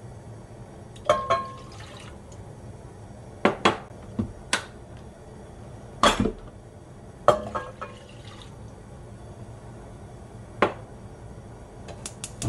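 Soy sauce and vinegar brine coming up to heat in a stainless steel pan on a gas burner: scattered sharp pops and ticks, some with a short metallic ring, over the low steady noise of the flame. A quick run of clicks near the end as the burner knob is turned.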